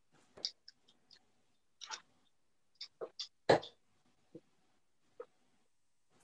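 Darts striking a bristle dartboard with short, sharp knocks, the loudest about three and a half seconds in, among lighter clicks and taps of darts being handled and pulled from a board.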